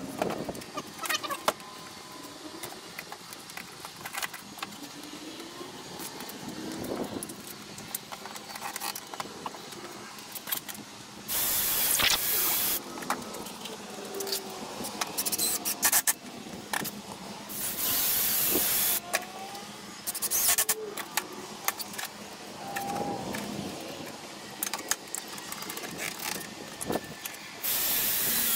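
Ridgid cordless drill running in about four short bursts of a second or so, drilling pilot holes so the very dry wood of a door frame won't split. Clicks and knocks of tools and boards being handled come between the bursts.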